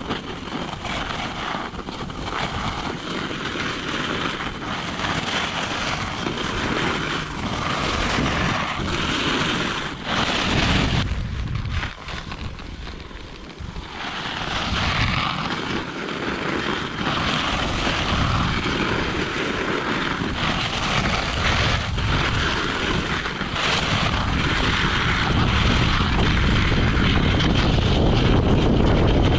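Wind rushing over an action camera's microphone at speed, mixed with Sled Dogs snow skates scraping over packed snow. The noise dips for a couple of seconds about halfway through and grows louder near the end.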